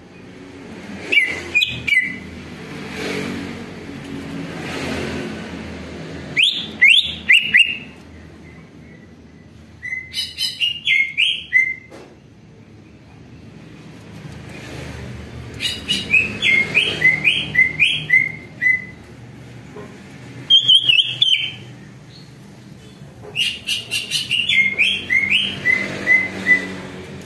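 Male greater green leafbird (cucak ijo) singing in six bursts of quick, chattering whistled notes, many sliding downward, with short pauses between bursts. A low rumble of traffic runs underneath.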